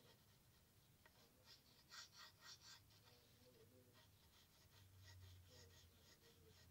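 Faint scratching of a graphite pencil on lined notebook paper, made in quick short strokes at about five a second and loudest about two seconds in.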